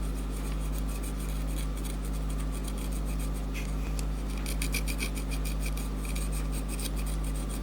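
Quick, small scraping strokes on an iPhone 5s logic board at the processor site, working off leftover underfill compound around the solder pads, over a steady electrical hum. The scraping grows a little denser from about halfway through.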